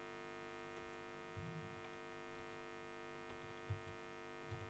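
Steady electrical mains hum with many overtones, picked up by the recording microphone. A few faint soft keyboard taps come through it as a line of code is typed.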